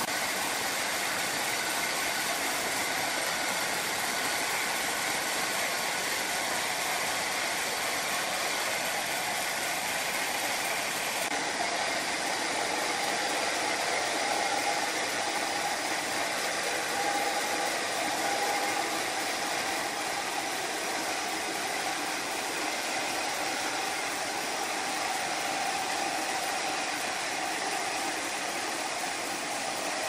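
Large horizontal band sawmill running, its band blade sawing lengthwise through a big log: a steady noise of the blade in the wood over the hum of the machine.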